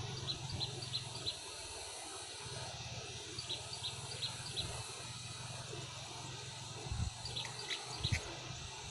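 Flowerpecker giving short, high chirps in quick series of four or five notes, three series in all, over a steady low hum. Two dull low thumps come near the end.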